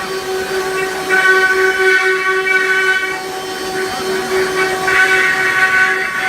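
Spindles of a multi-head CNC wood router running with a steady high whine, with louder rasping passages about a second in and around five seconds in as the bits cut into the wood.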